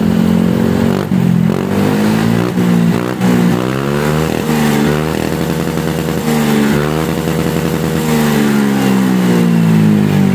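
Honda ADV 160 scooter's single-cylinder engine revved in place through its hollowed-out stock-style muffler, the revs rising and falling several times and held up for stretches, then easing back toward idle at the end.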